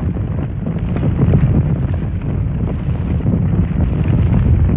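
Wood fire burning in the firebox of a wood-fired climbing kiln fed with red-pine slabs: a steady low rush with scattered small crackles.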